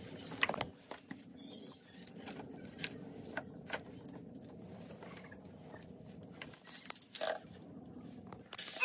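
Feathers being pulled by hand from a scalded rooster in a plastic basin: scattered soft scrapes, tearing and clicks.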